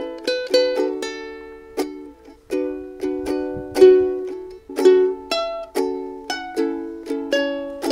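Ukulele fingerpicked in a repeating picking pattern: single plucked notes, about three a second, each left ringing into the next, with a brief pause about two seconds in.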